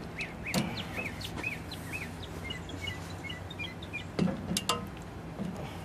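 A bird singing a string of short, repeated chirps, about two a second, then a brief twitter. A few sharp metallic clicks and knocks come from a valve spring compressor being squeezed down on a cylinder head, the loudest about four seconds in, over a steady low background hum.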